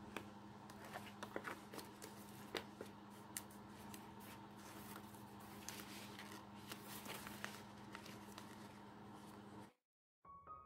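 Stiff cardstock being bent and handled, crackling and rustling with many short sharp clicks over a faint steady hum; it cuts off suddenly near the end.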